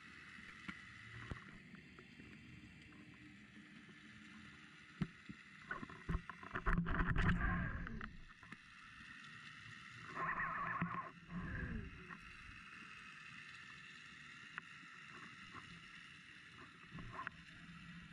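Muffled underwater noise picked up by a submerged action camera in its waterproof housing: a steady hiss with two louder rumbling surges, about seven and about eleven seconds in, and a few scattered clicks.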